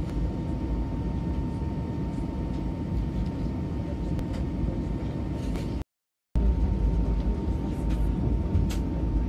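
Airbus A320 cabin noise while taxiing: a steady low rumble from the engines at idle and the gear rolling on the taxiway, with a faint steady whine. The sound cuts out completely for about half a second just past the middle.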